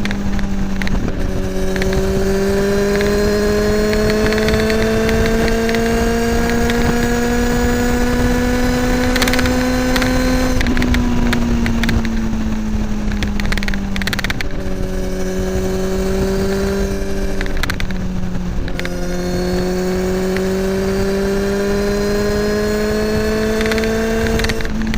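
Kawasaki ZX-10R inline-four with an Akrapovic slip-on exhaust running under way, its steady engine note climbing slowly in pitch as it gains speed. The note drops about ten seconds in, holds level, then climbs slowly again and drops near the end.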